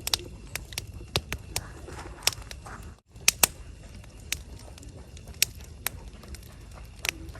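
Wood fire crackling, with irregular sharp pops and snaps over a steady low noise. The sound drops out briefly about three seconds in.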